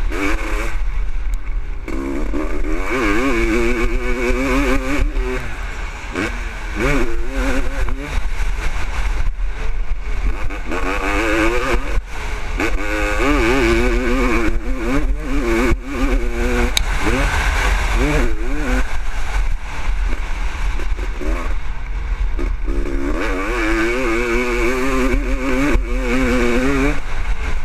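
Honda CR500's two-stroke single-cylinder engine revving up and falling back over and over as it is raced around a motocross track. Heard from the rider's helmet over a steady low rumble.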